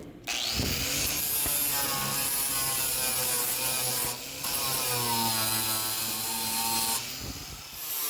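Angle grinder grinding metal in two long passes with a short break about four seconds in, its motor whine sagging and wavering in pitch under load.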